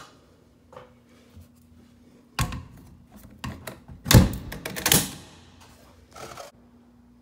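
A run of knocks and thuds with rubbing and rustling in between, from things being handled close to the microphone. The loudest knock comes a little past four seconds in. A faint steady hum runs underneath.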